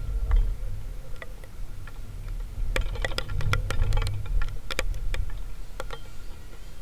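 Low rumble of wind buffeting the microphone, with irregular sharp clicks and taps, densest about three to five seconds in.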